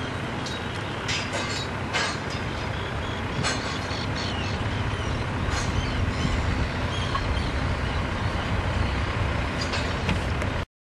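Heavy diesel machinery running with a steady low drone that grows slightly louder after about four seconds, with scattered metallic clanks and knocks. The sound cuts off abruptly near the end.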